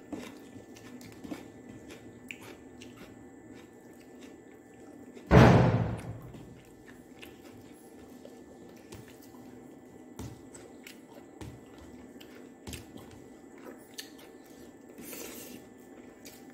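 Soft eating sounds: chewing, and fingers mixing rice and curry on a plate, with scattered small clicks. About five seconds in comes one loud thump that dies away within a second.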